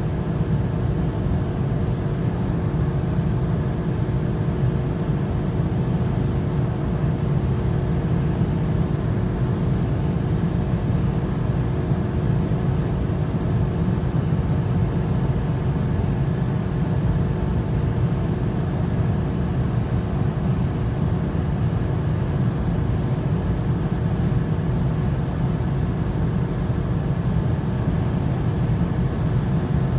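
Seat Ibiza's naturally aspirated 1.0-litre three-cylinder engine held steady just over 6,000 rpm in fifth gear at full throttle near top speed, about 207 km/h. It is heard inside the cabin, mixed with wind and road noise.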